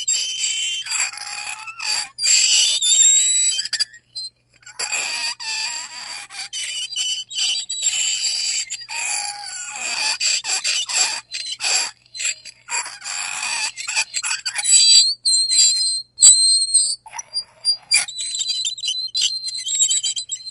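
A fork scraping across a plate in repeated uneven strokes, each giving a shrill, high-pitched squeal and screech, with short breaks between strokes.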